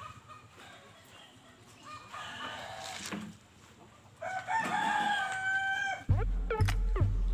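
A rooster crowing: a long, held crow about four seconds in, after shorter calls. Near the end, louder music with a heavy bass beat starts.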